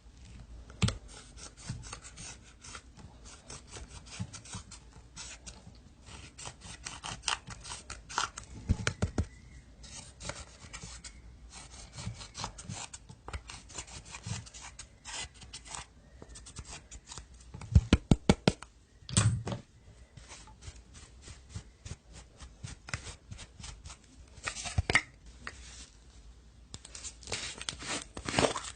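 Slime being squeezed and pressed by hand, giving a dense run of irregular crackles, clicks and small pops, with a quick string of louder pops about two-thirds of the way through.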